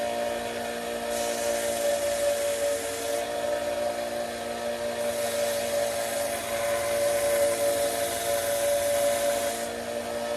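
Dremel rotary tool with a sanding drum running at a steady high whine, sanding a Micarta knife scale; the grinding hiss of the sanding swells and eases in stretches.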